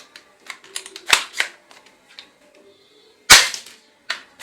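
Plastic toy shotgun clicking and firing: a few light clicks, two sharp snaps about a second in, and a louder shot a little after three seconds.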